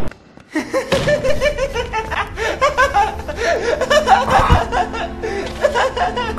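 Manic, hysterical laughter from a young man's voice, starting about half a second in after a brief hush and going on in rapid repeated bursts, with a low music bed underneath.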